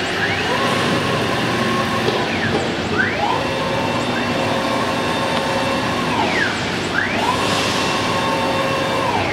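CIMTECH 1325 CNC wood router at work: its axis drive motors whine, rising in pitch as the gantry speeds up, holding steady through each long move, then falling as it slows, about three times, over the steady high whine of the spindle.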